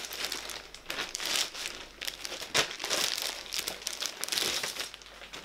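Clear plastic bag crinkling and rustling as it is handled and pulled off a large drawing tablet, an irregular run of rustles with several sharper crackles.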